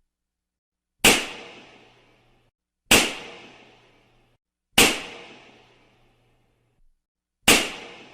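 Balloons bursting, four sharp pops roughly two seconds apart, each followed by a fading echo.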